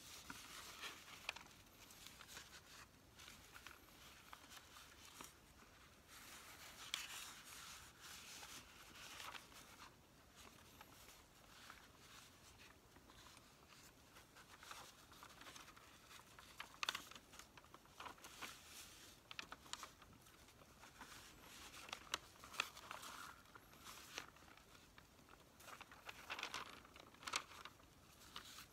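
Quiet rustling and crinkling of newsprint grocery ad flyers being leafed through and shuffled by hand, with small sharp crackles as pages turn and are set down.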